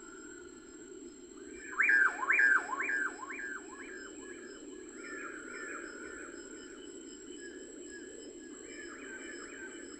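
A bird calling in a quick series of sharp, sweeping notes, loudest from about two seconds in, then repeating more softly, over a steady low hiss.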